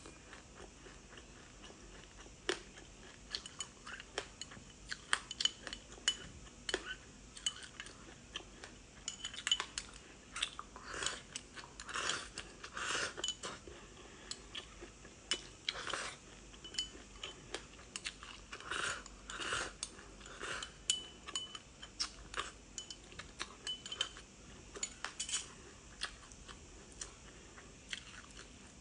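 Metal spoon clinking and scraping against a glass bowl, mixed with close-up crunching and chewing of frozen sesame-seed food. The clicks and crunches come irregularly throughout, several a second at their busiest.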